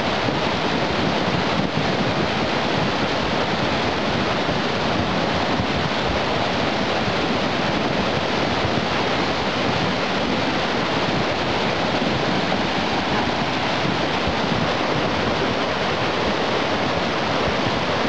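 Steady rush of a muddy post-fire flash flood (debris flow) pouring down a steep streambed, with boulders rolling along the bed under the water.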